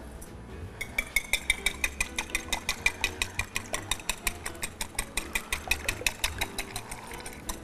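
Raw eggs being beaten in a ceramic bowl with a wire whisk, which clicks against the bowl about six times a second at a fast, steady pace.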